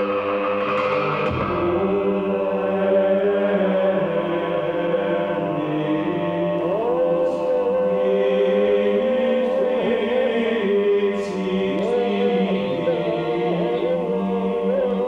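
Slow, droning, chant-like music: a held chord of sustained tones, with sliding pitched notes coming in over the drone about halfway through.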